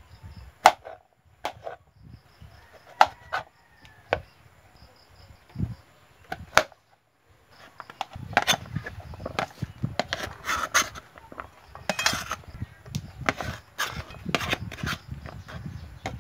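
Kitchen knife slicing bottle gourd on a cutting board: single slow knocks of the blade on the board, about a second apart. About eight seconds in, this gives way to a denser clatter and rubbing as the cut cubes are swept and scooped off the board.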